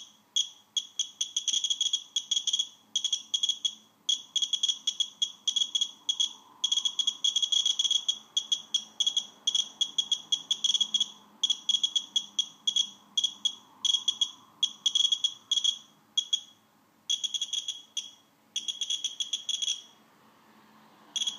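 Radex Geiger counter clicking rapidly, with dense runs of short high-pitched beeps, one for each detected particle. It is held over a watch with radium-painted hands, and the frequent counts show radioactivity well above background. The clicks thin out late on and pause briefly near the end.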